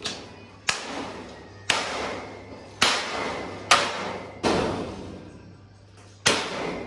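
Hammering: seven heavy knocks at uneven intervals, each ringing out briefly, over a faint steady low hum.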